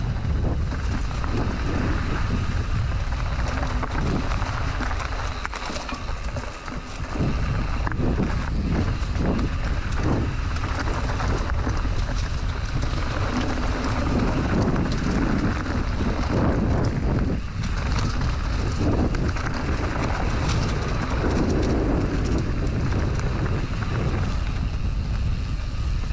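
Wind rushing over the microphone as a full-suspension mountain bike rolls down a rocky dirt trail, with tyre rumble and frequent knocks and rattles from the bike over stones and roots. The noise eases briefly about six seconds in.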